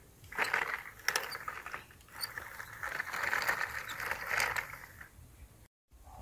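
Plastic wheels of a baby walker rolling and rattling over dry, gravelly dirt in a few pushes, with small clicks and scrapes.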